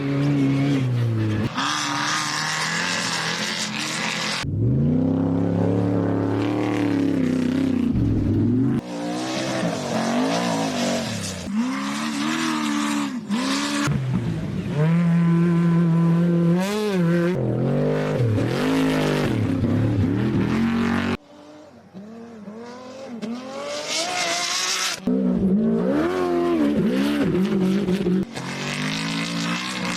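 Off-road race vehicles' engines revving hard and passing at speed, in a string of short takes that change abruptly every few seconds; the engine pitch climbs and drops as each one accelerates and goes by. It is quieter for a few seconds about two-thirds of the way through.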